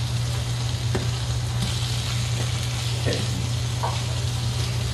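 Jack crevalle fillets sizzling steadily in a frying pan, with a few light clicks as a utensil turns them against the pan. A steady low hum runs underneath.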